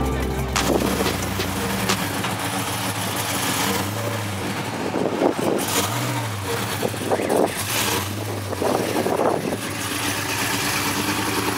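Car engine running, revved up and back down briefly about three times.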